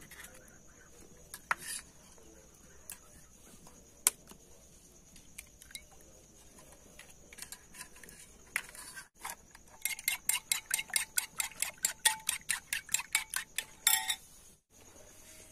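Eggs being cracked with a knife blade into a bowl, a few scattered taps and clicks. Then, from about ten seconds in, a spoon whisks the eggs briskly against the bowl, a fast run of clicks about six a second lasting some four seconds.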